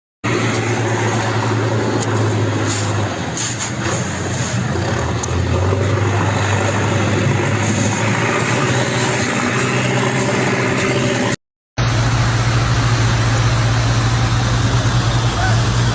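Steady motor-vehicle drone: a low engine hum under an even rush of noise. It breaks off in a short silence about eleven seconds in, then resumes a little louder.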